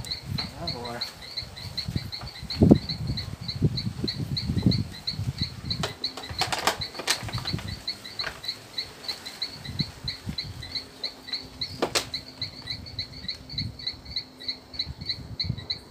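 Irregular knocks, thumps and rustles of a plastic bottle and pipe being handled at a water tank, with a few sharp clicks, the heaviest knocks a few seconds in. A steady high chirping pulses in the background, a few pulses a second.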